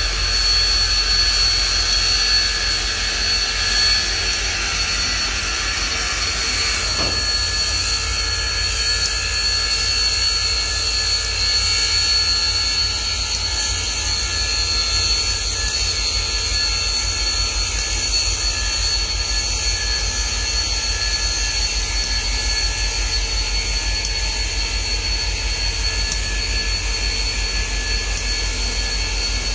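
Union Pacific Big Boy 4014 steam locomotive moving slowly close by: a steady, loud hiss of steam over a low rumble, with a faint knock about seven seconds in.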